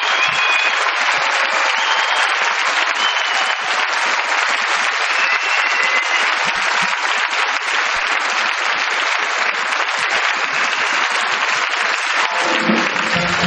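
Large audience applauding steadily. Band music starts up near the end.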